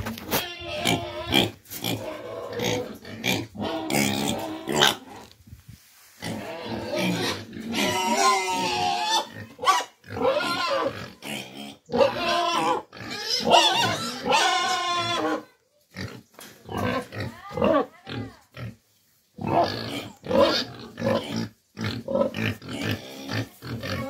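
Domestic pigs grunting and squealing over and over, with longer rising-and-falling squeals in the middle stretch and a few short pauses.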